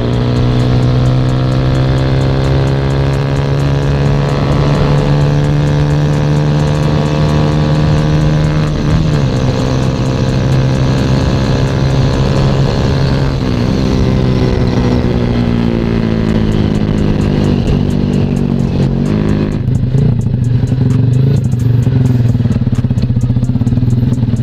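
Sigma 250 motorcycle engine running on the road. Its note dips and picks up again several times, then drops to a low, steady idle about twenty seconds in as the bike slows to a stop. The rushing noise under the engine fades at the same point.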